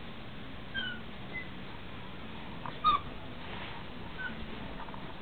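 Border collie puppy whimpering in short, high whines, four times, faint except for a louder one about three seconds in.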